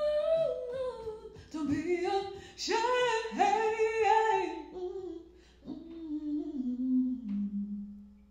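A woman singing a slow melody in long held notes, nearly unaccompanied; her last phrase steps down to a long low note that fades out near the end.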